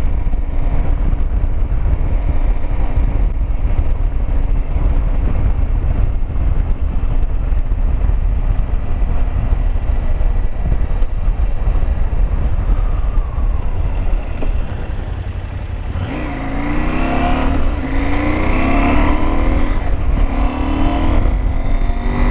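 KTM 790 Adventure's 799 cc LC8c parallel-twin engine heard from the moving bike under heavy wind rumble: first running at steady revs, then, about two-thirds of the way in, accelerating hard up through the gears, the engine note rising and dropping back with each upshift about four times.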